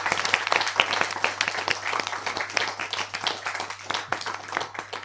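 Applause: many hands clapping, thinning out and fading toward the end, over a faint steady low hum.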